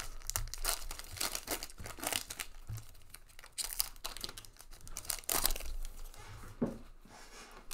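Trading-card pack wrapper crinkling and tearing as it is opened by hand, with the cards rustling as they are handled, a run of irregular scratchy rustles and small clicks.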